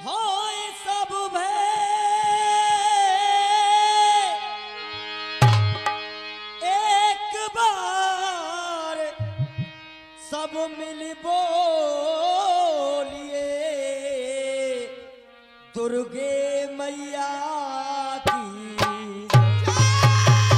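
Live rasiya folk music: a singer holds long, wavering notes over a steady sustained instrumental drone, with a few single drum strokes and then a regular drum beat starting near the end.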